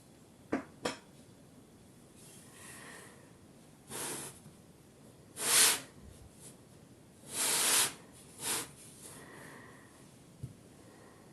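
Kinetic sand being scraped and cut in a series of short strokes, the loudest about halfway through, with a couple of light tool clicks near the start.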